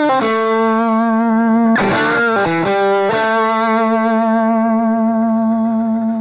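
Slick SL59 doublecut junior electric guitar with a single P90 pickup, played through an amp: long sustained notes, with a wavering bend-and-vibrato phrase about two seconds in, then a last note held to the end.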